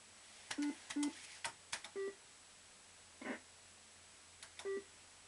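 Bell-Fruit 'The Bandit' fruit machine with its reels in motion: sharp mechanical clicks mixed with short electronic beeps and tones. One cluster comes in the first two seconds, a short burst about three seconds in, and more clicks with a beep near the end.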